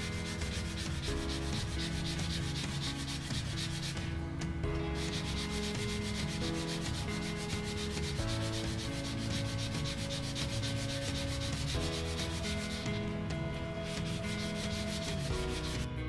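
Hand sanding of a wooden cane's tip with sandpaper: quick back-and-forth rubbing strokes, easing off briefly twice, about four and about thirteen seconds in. The wood is being worked down so the metal ferrule will fit.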